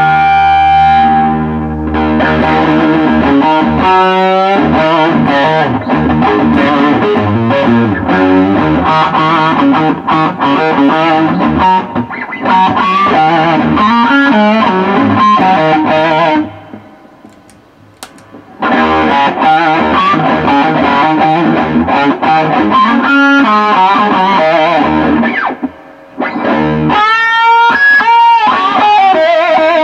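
Electric guitar played through a homemade germanium fuzz/boost pedal into a combo amp: distorted chords and riffs. The playing stops for about two seconds a little past halfway, and bent, wavering single notes come near the end.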